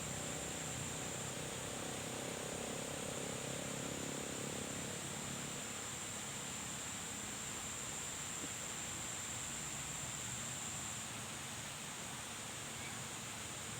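Steady outdoor hiss with a continuous high-pitched insect drone that stops about eleven seconds in. A faint low hum fades out about five seconds in.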